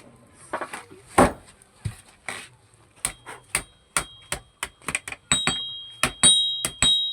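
Hand hammer striking hot iron on an anvil during forging. A few separate blows come first, then a steady rhythm of about three strikes a second from about three seconds in. From about five seconds in, each blow is followed by a clear, high ring.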